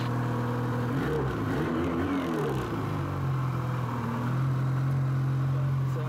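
Ski-Doo MXZ Blizzard's 600 H.O. E-TEC two-stroke twin running. About a second in it revs briefly up and back down, then settles into a steady idle.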